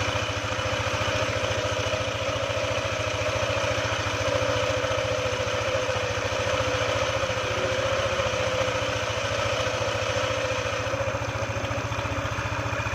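Yamaha NMAX scooter's single-cylinder engine idling steadily, running after its automatic clutch shoes have been replaced to check whether the rattle is gone.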